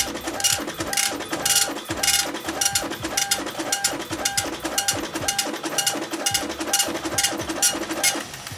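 Apple ImageWriter II dot-matrix printer printing a test graphic, its print head buzzing in short, evenly repeated passes about three times a second.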